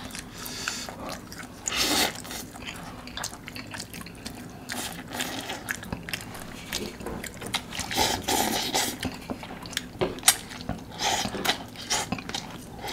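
Close-up wet slurping and chewing of saucy instant ramen noodles eaten from a cup with chopsticks, in irregular short bursts.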